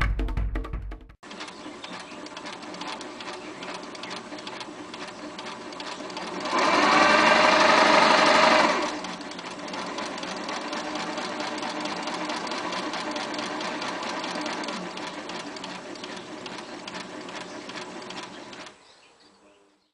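Singer 507 electric sewing machine running, stitching steadily. It gets louder for about two seconds partway through, then runs on evenly and stops shortly before the end.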